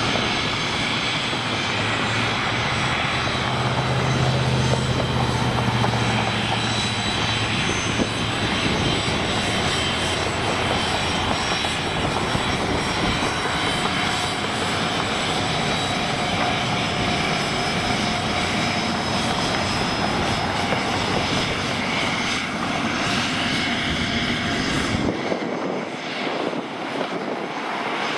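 Jet aircraft engines running: a steady rushing noise with high whining tones. The low rumble drops away abruptly near the end.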